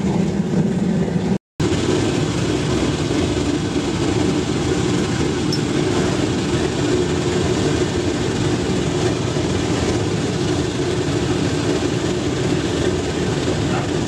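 Blower-fed waste oil burner running steadily, its flame jetting into a brick furnace: an even rushing noise of flame and forced air, broken by a split-second gap about a second and a half in.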